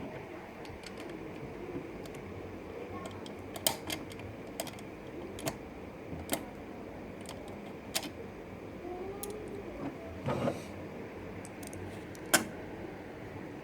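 Irregular small clicks and taps of something being handled, about a dozen spread unevenly, with a short scraping rustle about ten seconds in, over a steady low background hiss.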